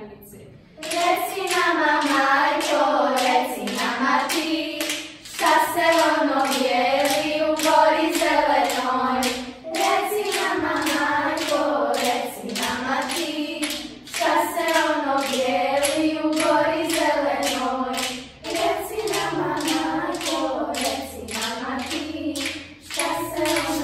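A group of children's voices chanting verse in unison in a sing-song melody, phrase after phrase with brief breaks about every four to five seconds, over a steady beat of hand claps at about three a second.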